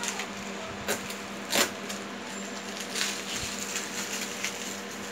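Clear plastic packing wrap rustling and crinkling as it is handled and pulled off a new printer. There are a few sharp crackles, the loudest about one and a half seconds in, over a steady low hum.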